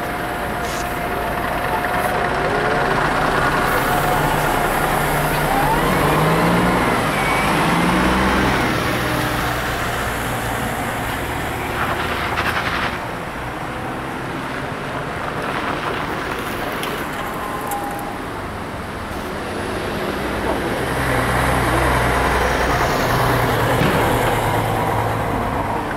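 Road traffic: articulated city buses and cars driving past with engines running. It swells twice, about four seconds in and again near the end.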